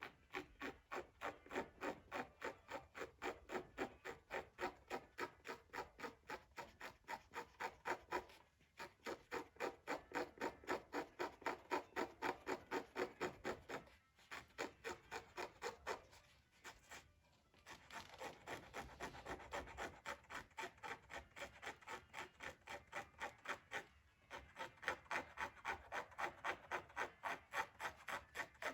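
Quick, even back-and-forth rubbing strokes on Torah parchment, a few strokes a second, stopping briefly a few times.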